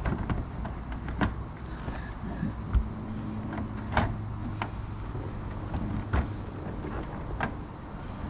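Plastic housing of a MAXX Fan Deluxe knocking and scraping as it is test-fitted into a roof vent opening, with about seven separate knocks spread through, the unit catching on something as it goes in.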